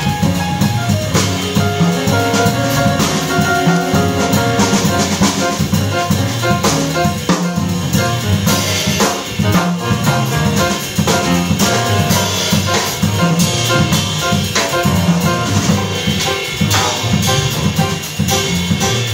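Live acoustic jazz: grand piano playing busy runs and chords over a plucked double bass line and a drum kit with steady cymbal work.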